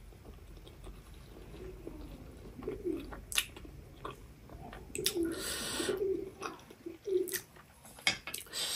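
Close-miked chewing of noodles with the mouth closed: wet mouth clicks and smacks, with a few short low sounds from the throat as she swallows.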